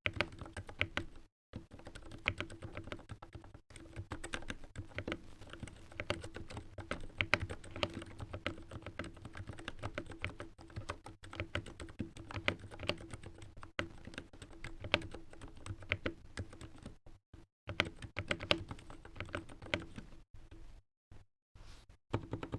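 Continuous typing on a mechanical keyboard with lubed Gateron Silent Black switches: a fast stream of muted keystrokes with a few short pauses, the longest near the end. A steady low electrical buzz from the microphone runs underneath.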